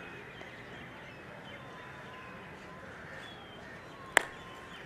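Quiet open-air background with faint bird calls, broken about four seconds in by a single sharp knock: a marching boot stamping down on the hard parade ground.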